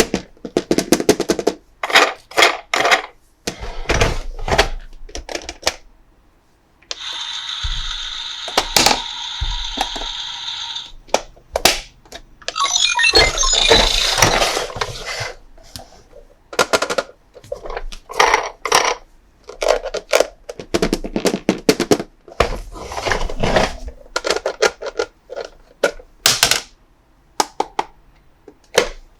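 Hard plastic toy parts clicking, snapping and knocking as they are handled and fitted together. A steady electronic buzzing tone from the toy's sound effects runs for about four seconds, followed by crinkling packaging for a couple of seconds.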